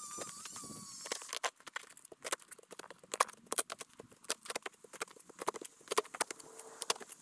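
Sped-up digging with a shovel: rapid, irregular clicks and knocks of the blade in soil and stones. A thin wavering tone comes first and stops about a second in.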